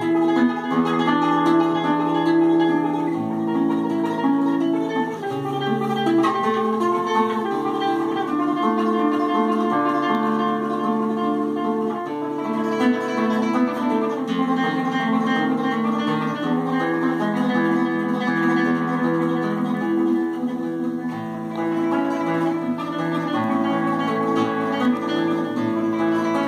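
Nylon-string classical guitar played solo, a plucked melody moving over sustained bass notes.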